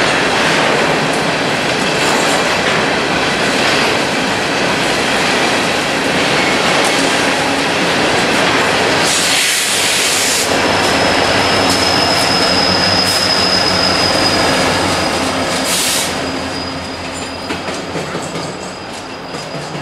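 BNSF coal train's hopper cars rolling past with wheels clattering over the rail joints. About halfway, a diesel locomotive coupled in the train goes by with a short rush of noise, then a steady high-pitched wheel squeal sets in. The train noise fades over the last few seconds as it moves away.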